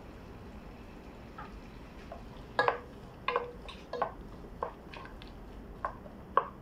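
Wooden spoon stirring chopped onions in a metal pot, knocking against the pot about six times from a few seconds in.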